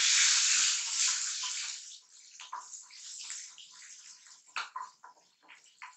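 Peeled shallots hitting hot oil with tempering spices in a kadai: a loud sizzle at first that dies down after about two seconds to scattered crackles and pops as they are stirred.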